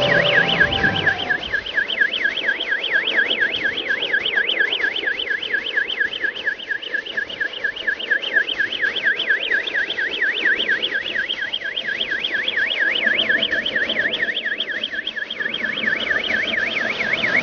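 Electronic yelp siren from a radio-controlled scale recovery truck's sound unit, sweeping quickly up and down several times a second without a break, over a faint low hum.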